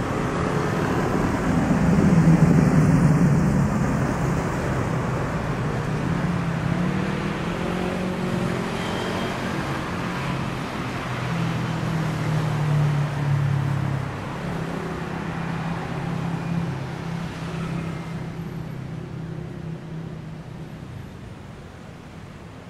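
City road traffic: motor vehicle engines running and passing close by, with a steady low engine hum under tyre and road noise. It is loudest about two to three seconds in, then fades gradually toward the end.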